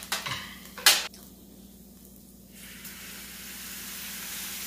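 A sharp clink about a second in, then from about two and a half seconds a sizzling hiss that builds steadily: water poured onto the hot charcoal brazier, flashing into steam.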